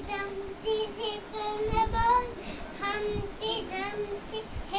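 A young child singing a song unaccompanied, in short phrases with held notes.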